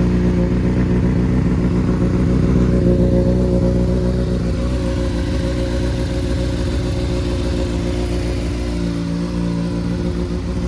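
A 2022 Honda CBR600RR's inline-four engine idling steadily through a cat-deleted exhaust, running on a flash-tuned ECU and K&N air filter. Its note shifts slightly about nine seconds in.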